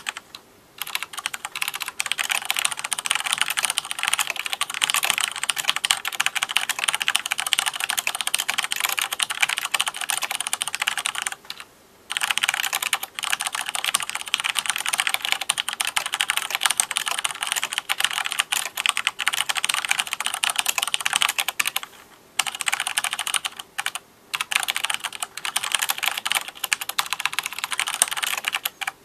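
Continuous fast typing on an Owltech mechanical keyboard with Cherry MX Black linear switches: a dense stream of key strikes, broken by a few brief pauses.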